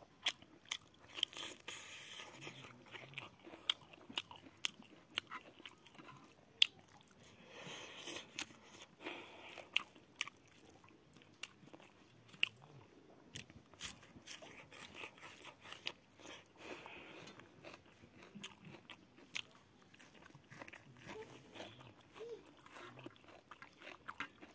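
Close-up eating sounds of a person chewing mouthfuls of rice and boiled pork: wet chewing and crunching with many irregular sharp mouth clicks and smacks.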